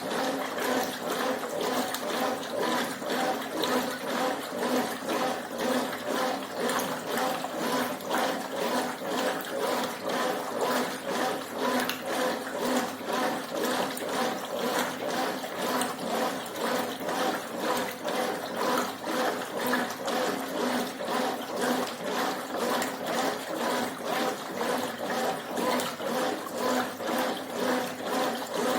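Top-loading washing machine agitating a load of sheets, blankets and towels: its Dual Action agitator swishes the water back and forth in a regular, fast rhythm of sloshes.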